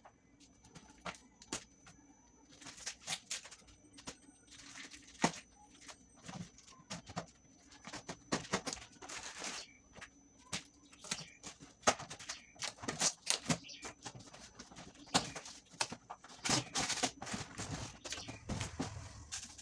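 Kitchen knife slitting the packing tape along a cardboard box, in a series of irregular scraping strokes with some sharp clicks, then cardboard flaps rustling and scraping as they are pulled open near the end.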